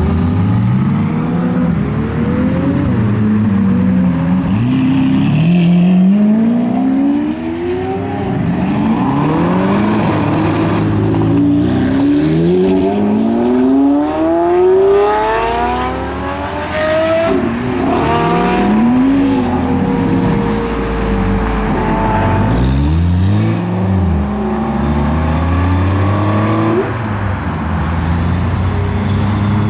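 Supercar engines revving and accelerating away one after another, their notes rising in repeated sweeps as they pull through the gears, several cars often heard at once.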